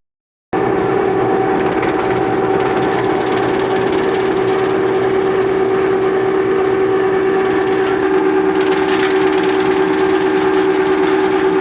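216 drum wood chipper running with a steady, high-pitched hum. It cuts out for about half a second at the start and gets a little hissier about eight seconds in.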